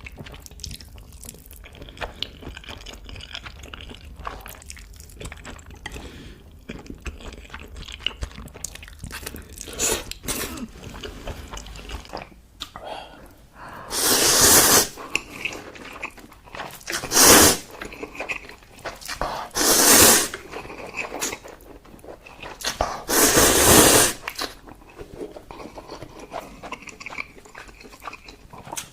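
Close-miked eating of cheesy noodles and sausages: soft, wet chewing, then four loud bites or slurps in the second half, the last one the longest.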